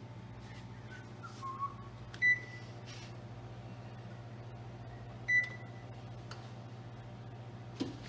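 Steady low electrical hum with two short electronic beeps, about three seconds apart, from a kitchen appliance.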